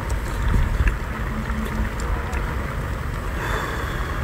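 Steady low rumble of wind buffeting the microphone, with a few faint clicks as shellfish shells are handled and pried open.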